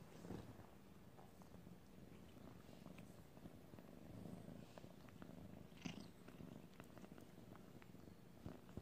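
Savannah kitten purring faintly and steadily, with scattered soft clicks and one brief, sharper sound about six seconds in.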